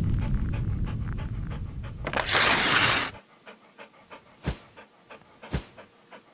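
Sound effects: a dog panting in quick rhythmic breaths, cut by a loud whoosh about two seconds in, then faint short puffs at an even pace.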